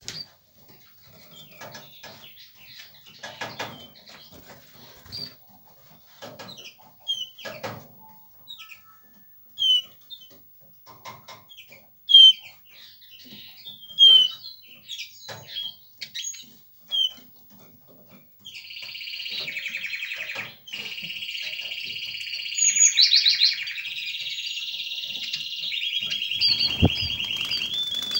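Eurasian siskin and canary in a cage: scattered short chirps and call notes with wing flutters, then, about two-thirds of the way in, a continuous twittering song with long buzzy trills, the courtship song of the male siskin. A single low thump near the end.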